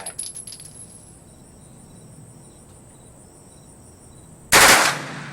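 A short burst of full-automatic gunfire from a select-fire rifle, lasting under half a second, about four and a half seconds in, after a few seconds of quiet.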